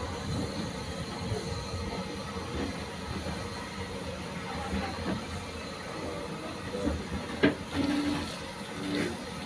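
A steam-hauled passenger train rolling slowly, with a steady rumble of coach wheels on the track and one sharp knock about seven and a half seconds in.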